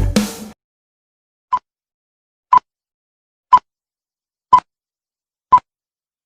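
Guitar-and-drums music cuts off, then five short electronic beeps of the same pitch sound evenly, one a second.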